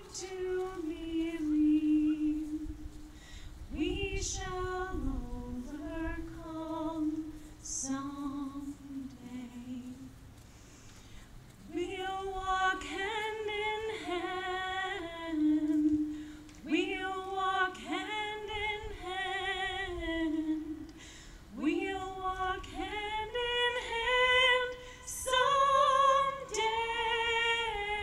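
Music: a woman singing, in phrases of long held notes with short pauses between them.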